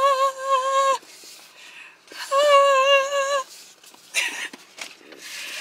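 A woman's voice singing long, high, wavering notes in excitement, twice: the first ends about a second in, the second comes after a short pause.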